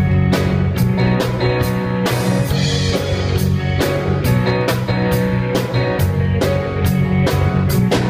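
Intro music with a steady drum beat, about two hits a second, over sustained instrumental tones.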